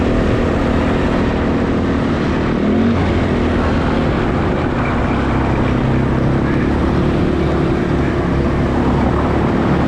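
Four-wheeler (ATV) engine running steadily while the quad is ridden, its pitch shifting a little with the throttle.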